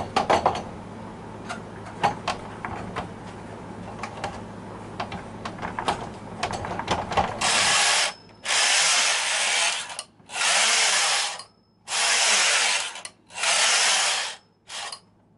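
Light clicks and knocks, then the carriage of a Silver Reed SK160 mid-gauge knitting machine pushed back and forth across its freshly oiled needle bed. From about halfway in there are about five passes, each a steady rasping noise of about a second, to spread the oil along the bed.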